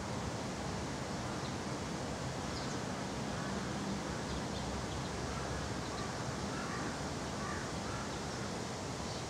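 Steady outdoor background noise, with a few faint, short bird calls about seven seconds in.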